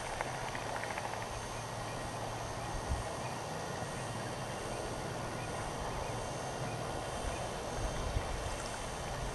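Steady outdoor background noise with no clear call, and a soft low rumble that fades after about three seconds.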